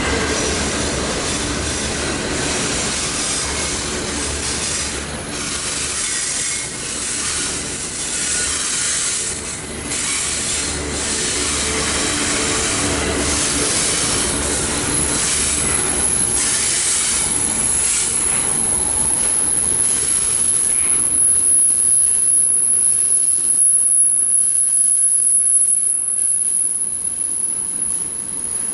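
Union Pacific intermodal freight cars rolling past on the rails, the wheels clicking over the rail joints, with a thin high-pitched wheel squeal from about halfway through.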